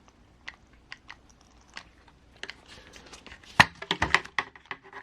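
Light clicks and taps from handling a small plastic 1/18-scale RC truck, sparse at first, then coming thick and fast in the second half, with the sharpest click about three and a half seconds in.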